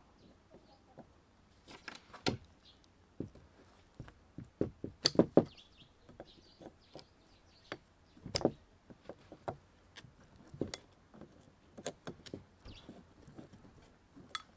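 Pliers clicking and knocking against the rusted chuck and metal body of an old gear-driven hand drill as it is gripped and twisted to work the parts loose: scattered short metallic taps, in small clusters, loudest about five seconds in.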